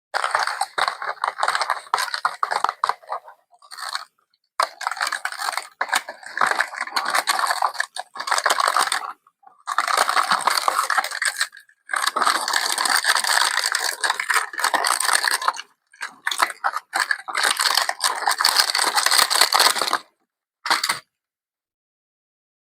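Packaging crinkling and rustling as it is handled and opened, in bursts of a few seconds with short pauses, with small clicks and rattles from the contents.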